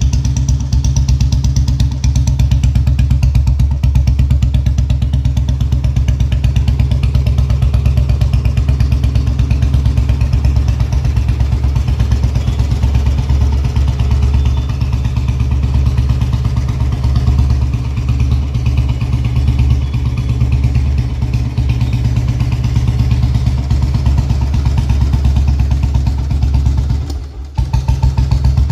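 1982 Royal Enfield Bullet single-cylinder four-stroke motorcycle engine idling steadily, with a rapid even beat of firing pulses. The sound dips briefly near the end.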